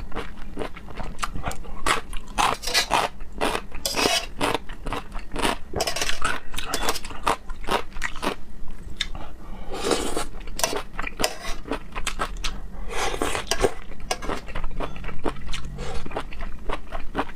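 Close-miked eating sounds: chewing and biting raw seafood, with many quick crunchy clicks and a few longer hissing sounds in between.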